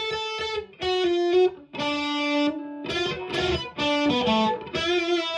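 Fender Vintera '70s Telecaster Custom electric guitar with the Lindy Fralin high-output bridge pickup and the CuNiFe Wide Range neck humbucker selected together, played as loose noodling. Single notes ring out one after another, with a few strummed chords about three seconds in.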